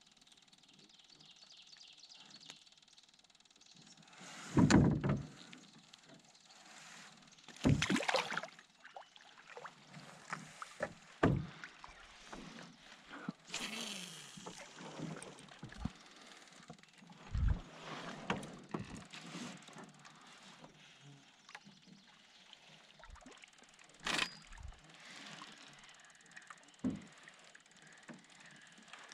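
Canoe being paddled: soft water swishes from the paddle strokes, broken by several irregular knocks of the paddle or gear against the canoe hull, the loudest about five seconds in.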